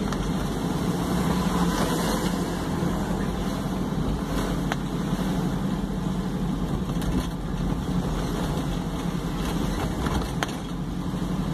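Steady engine and road noise of a moving car, heard from inside the cabin while driving through city traffic.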